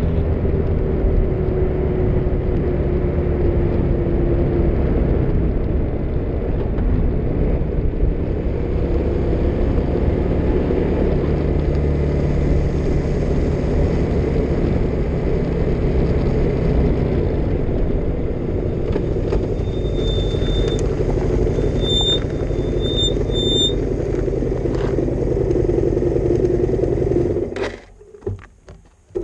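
Motorcycle riding at a steady speed: the engine running under wind and road noise, with a few short high chirps in the last third. Near the end the noise drops away sharply as the bike comes off the road onto the gravel shoulder.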